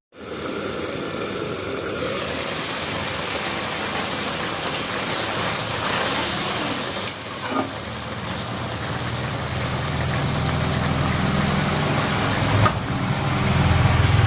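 Fish and vegetable curry sizzling in a covered pan, a steady hiss, with a low hum beneath it that grows louder in the last few seconds and a couple of faint clicks.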